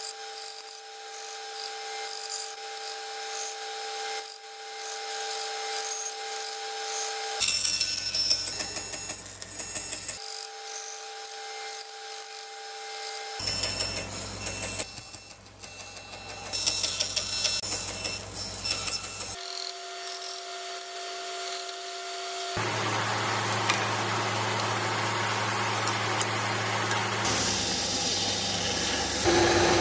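Bandsaw running and cutting small pieces of wood, the sound changing abruptly several times between steadier and noisier stretches.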